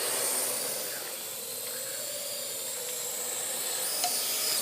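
Parrot AR.Drone 2.0 quadcopter's electric motors and propellers whirring steadily in flight: a hiss with a hum that drifts slightly in pitch.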